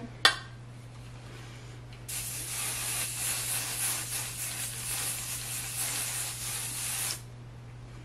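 Aerosol hairspray can spraying onto curled hair: one continuous hiss of about five seconds that starts about two seconds in and cuts off sharply. A single sharp knock comes just before it, shortly after the start.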